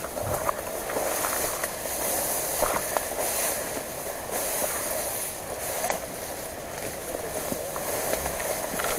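Tall grass and brush rustling and swishing as someone pushes through dense undergrowth on foot, with a few faint twig snaps.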